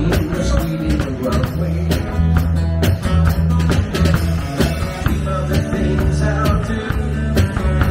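A band playing upbeat rock-and-roll, with a steady drum beat over a bass line.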